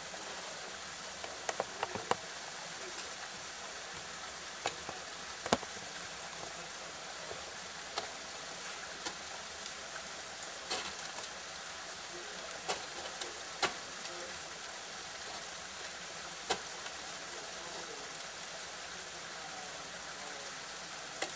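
Ice axe and crampon strikes on waterfall ice: about a dozen sharp, irregular knocks, the loudest about five seconds in, over a steady hiss.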